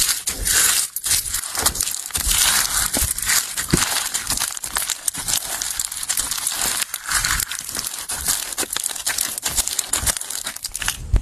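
Slime being squeezed and poked by hand, making a dense, continuous run of crackling, crunchy pops.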